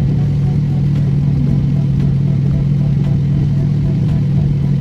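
Steady low hum of a car's idling engine and cabin ventilation, heard from inside the closed car.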